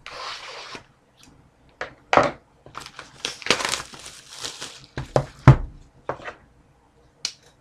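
Plastic shrink-wrap crinkling and tearing as a sealed hockey card box is unwrapped and opened, with a run of sharp rustles and handling knocks and one louder thump about five and a half seconds in.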